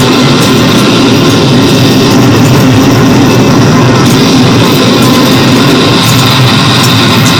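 Harsh noise electronics played live: a loud, continuous, heavily distorted wall of noise filling the whole range from low rumble to high hiss, with short crackles in the highs near the end.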